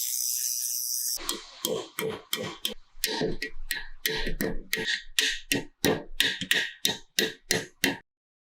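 Hand work on a motorcycle part: a steady hiss for about a second, then a quick run of rhythmic strokes, about three a second, that stops abruptly near the end.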